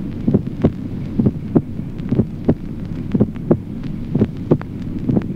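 Recorded heart sounds at auscultation: a steady lub-dub about once a second over a low steady hum. The first heart sound is split into two components only just perceptible as separate, a split first heart sound.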